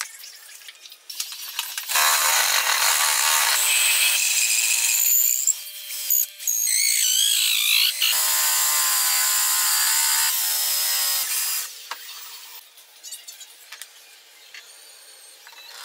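Power drill spinning a wooden dowel through a jig of jigsaw blades, the teeth shaving it down. It runs in two long bursts of about three and a half seconds each, with a short wavering squeal between them.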